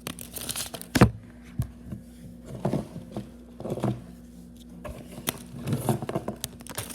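Irregular knocks, thumps and scrapes of things being moved about, the loudest thump about a second in, over a low steady hum.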